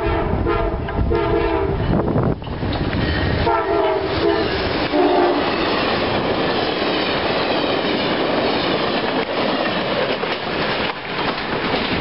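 Amtrak passenger train passing close at speed: the locomotive's horn sounds a chord in several blasts during the first five seconds, then the wheels rumble and clatter steadily over the rail joints as the cars go by.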